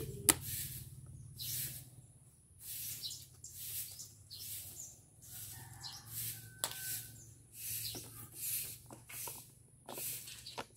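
Screwdriver working the screws out of a Honda Spacy scooter's speedometer housing: a series of short, hissy scraping turns, roughly one a second, with a few sharp clicks.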